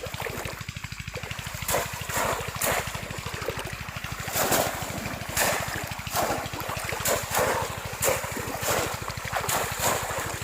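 Water splashing in shallow river water, in repeated sharp strokes about once a second, over a steady fast low pulsing.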